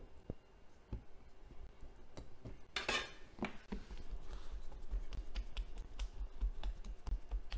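Scattered light clicks and taps of hands working at a kitchen counter, shaping a pizza dough, with a brief rustle about three seconds in.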